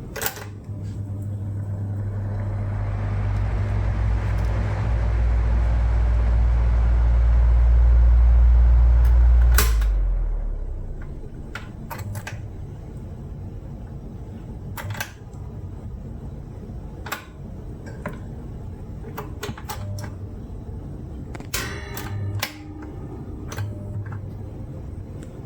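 An electric motor is switched on with a click and runs with a low hum that builds for about nine seconds, then is switched off with a click and winds down. After that come scattered light clicks and knocks of small metal parts being handled.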